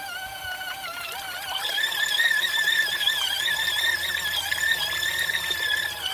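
Small portable washing machine running its wash cycle: the motor gives a steady, slightly wavering high whine over a low hum, a little louder after about two seconds.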